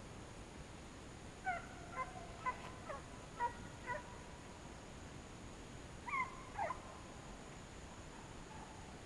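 Deer hounds barking faintly on a drive: a quick run of about six barks a couple of seconds in, then two more just past the middle.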